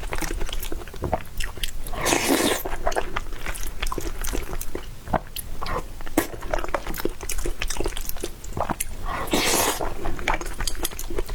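Close-miked chewing of soft food: a dense run of small wet mouth clicks, with two longer noisy bursts, about two seconds in and again near the end.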